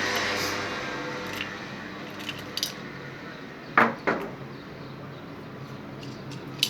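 Light metal clinks, then two sharp knocks close together about four seconds in, from the removed washing-machine spin-dryer motor and its metal parts being handled.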